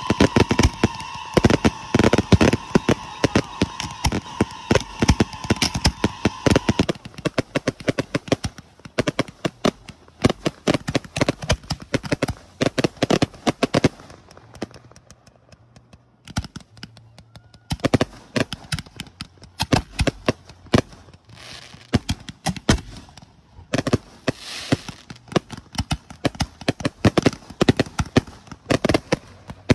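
Fireworks display going off close by: a dense, rapid barrage of crackling reports and bangs from fountains, comets and aerial shells. It thins to scattered pops about halfway through, then builds back to a thick volley. A steady high tone sounds under the bangs for the first several seconds, then stops.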